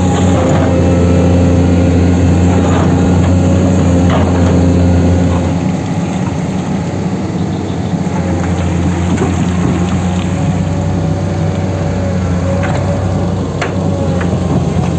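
Heavy machinery engine running steadily, with a few short clanks; a little quieter after about six seconds.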